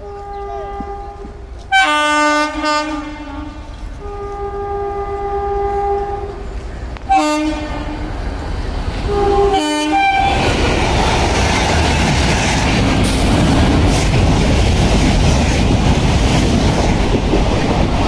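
Indian Railways electric locomotive sounding its horn in a series of blasts, some long and some short, as a warning to a woman on the track ahead. About ten seconds in, the express reaches the platform and its coaches rush past loudly, wheels clattering on the rails.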